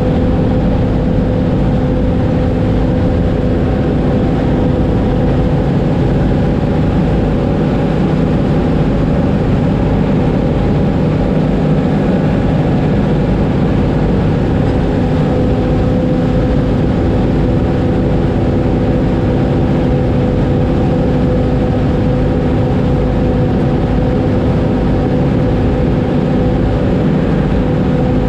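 Oliver 7300 combine running steadily while cutting wheat: a constant machine drone with a steady hum that holds one pitch.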